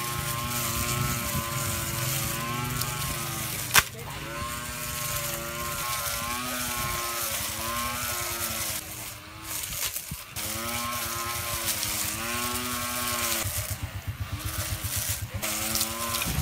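Homemade trimmer's 775 DC motor spinning its small cutting blade, a whine whose pitch repeatedly sags and picks back up as the blade cuts through leafy ground cover. A single sharp click comes about four seconds in.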